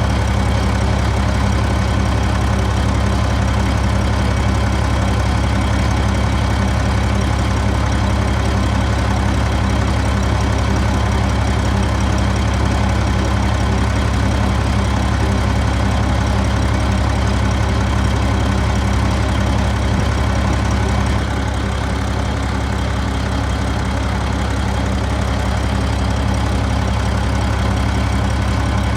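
Heavy diesel engine of earthmoving machinery running steadily with a low, even drone. The level drops slightly about three-quarters of the way through.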